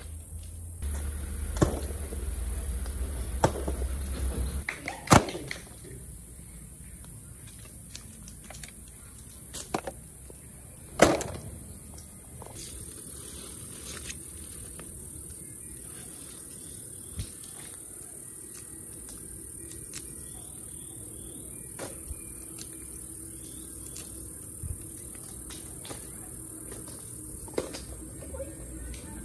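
Steady high-pitched drone of insects, with scattered sharp knocks and snaps, the two loudest about five and eleven seconds in, and a low rumble in the first few seconds.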